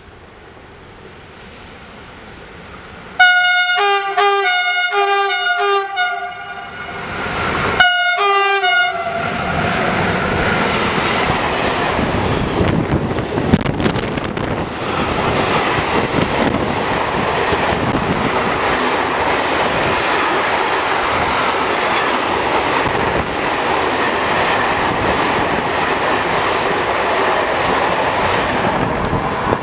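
Freight train's horn sounding a series of short blasts as the train approaches, then one more brief blast a couple of seconds later. The train then runs through at speed: a loud steady rumble with wheel clatter as the tank wagons roll past on the rails.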